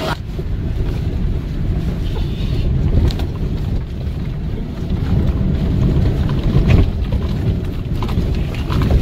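Mitsubishi Triton pickup driven on a dirt course, heard from inside the cabin: a loud, steady low rumble of engine and tyres on rough ground, with a few sharp knocks from bumps.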